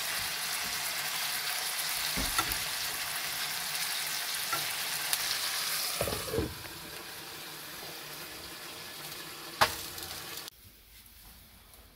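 T-bone steak sizzling in a hot frying pan, with a spoon stirring and basting it. About six seconds in, a glass lid goes on the pan and the sizzle turns quieter and muffled; near the end there is a single sharp clink.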